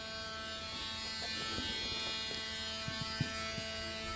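Cordless Dremel rotary tool running steadily with a high, even whine, with a few light taps in the second half.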